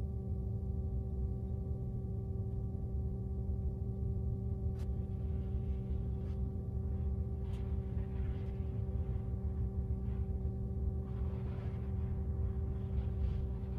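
Steady hum made of several held tones over a low drone, unchanging throughout. Faint rustling and a couple of light clicks come in over it in the second half.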